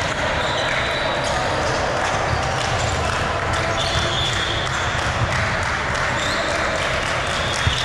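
Gym crowd noise at a volleyball match: many voices talking at once in a large echoing hall, with balls thudding on the court floor and brief high squeaks.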